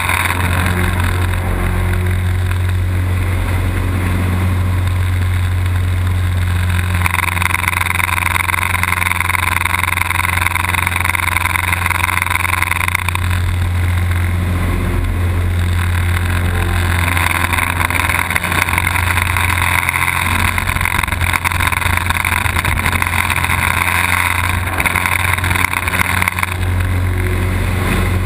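Light aerobatic plane's engine and propeller running loudly, heard from inside the cockpit with airflow noise. The tone shifts several times, the higher part brightening and fading every few seconds.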